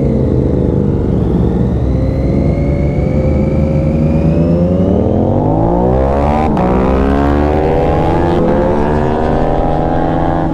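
Triumph Daytona 675's three-cylinder engine under way with wind noise, rising in pitch as the bike accelerates from about halfway through, then holding at the higher pitch.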